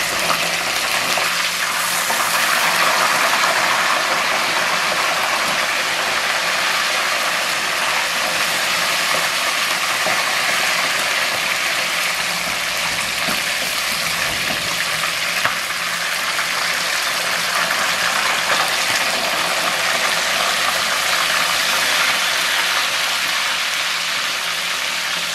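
Two whole mojarra fish frying in hot oil in a frying pan: a loud, steady sizzle as they are turned with metal tongs.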